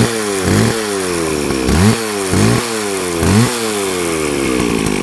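McCulloch 610 two-stroke chainsaw engine being revved in about five quick throttle blips, each rising and falling in pitch, then settling to a steady idle about four seconds in.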